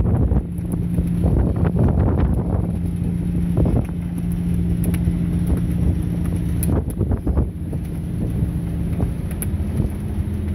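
Boat's diesel engine running steadily on the water, its low hum dropping out for a couple of seconds in the second half, with wind buffeting the microphone.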